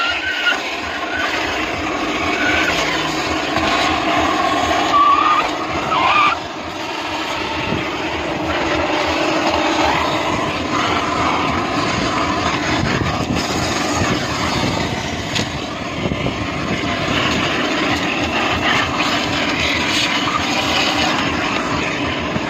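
Coin-operated car-wash vacuum running steadily as its nozzle sucks dirt from the car's floor carpet and footwell corners. The pitch briefly shifts a few times in the first several seconds as the nozzle presses against the surfaces.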